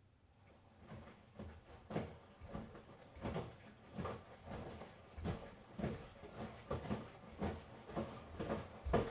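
Miele washing machine drum starting to turn again after a pause, the wet laundry tumbling and sloshing in an uneven rhythm of swishes and soft thumps, about two a second.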